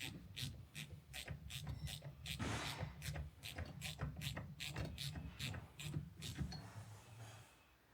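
Even clicking, about three to four clicks a second, as the nut on a fuel tap is wound down, with a brief scraping rub about two and a half seconds in; the clicking stops near the end.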